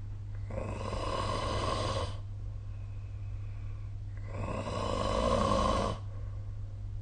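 A sleeping person snoring: two long snores about four seconds apart, each lasting one and a half to two seconds, the second one louder, over a steady low hum.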